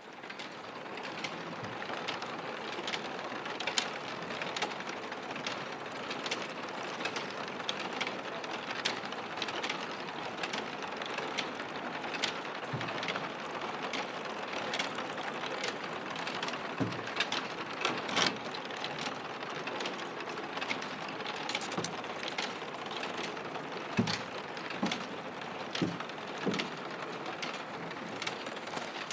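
Roof tile factory machinery running with a steady mechanical clatter, full of irregular clicks and a few louder knocks.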